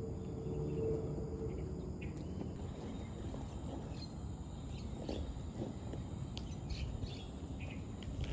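Outdoor ambience: a steady low background rumble, with scattered short bird chirps in the middle and latter part.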